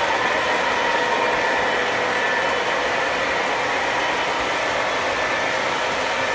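Model trains running on the layout's track: a steady rolling rumble of wheels on rail with a faint, even whine from the locomotive motors.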